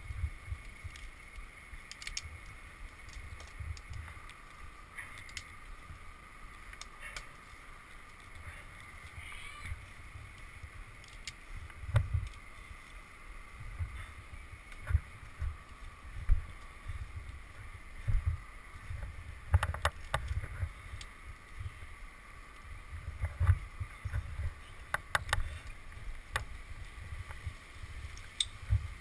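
Wind and handling rumble on a head-mounted microphone, with scattered clicks and knocks from climbing gear and hands on the trunk as a climber on spikes works up a poplar. The loudest knocks come in small clusters about two-thirds of the way through. A faint steady high hum sits underneath.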